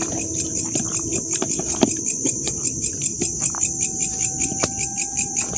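Night insects calling in a high, rhythmic pulsing chorus, about five pulses a second, growing louder after the first couple of seconds.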